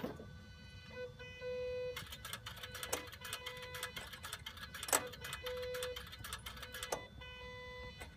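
Electronic turbo actuator on a TDV6 diesel moving after the ignition is switched off: a short humming tone that comes twice, about four seconds apart, amid scattered clicks. The actuator is actuating, the check for a TDV6 that is down on power or blowing black smoke.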